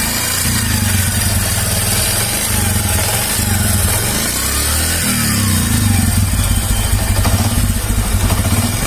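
Bajaj Platina's single-cylinder four-stroke engine running with a bad mechanical noise after being run with no engine oil left. The mechanic traces the noise to a worn-out piston and rings knocking in the head and cylinder liner, with the connecting rod found sound.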